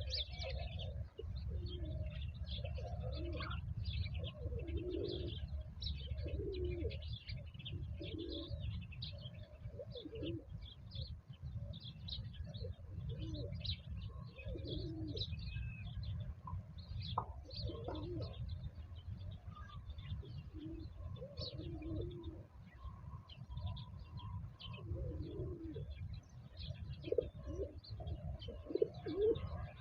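Pigeons or doves cooing again and again, with small birds chirping throughout, over a steady low rumble.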